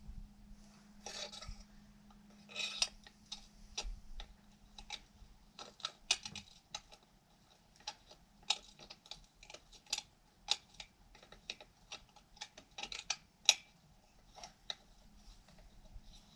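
Irregular light metallic clicks and short scrapes of a hex key and screws being worked on a chainsaw muffler, with two longer scraping bursts near the start.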